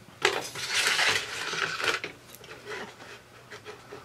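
Rubbing and scraping for about two seconds, then a few light knocks, as the iPad in its housing is slid across the bench to bring the other connector under the microscope.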